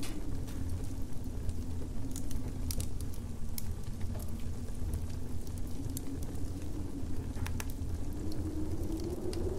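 Winter ambience: a steady low wind rumble with a faint howl that sinks and then rises slowly, over scattered sharp crackles of a wood fire.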